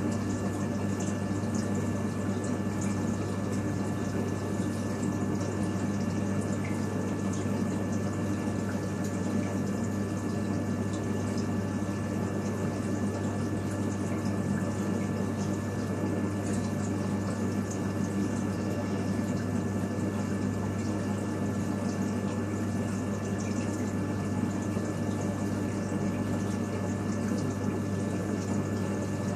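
Reef aquarium pumps and circulating water: a steady low hum with water running and trickling, unchanging.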